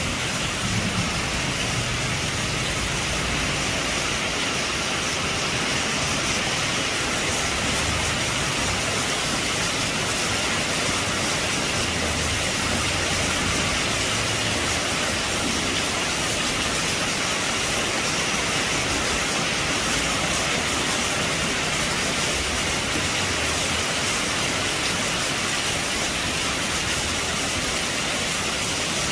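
Heavy rain drumming steadily on a metal roof, an even hiss that holds constant. The tail of a thunder rumble dies away in the first second.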